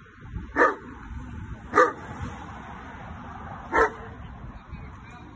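Large black dog barking angrily: three single barks, the second about a second after the first and the third after a longer pause, over steady background noise.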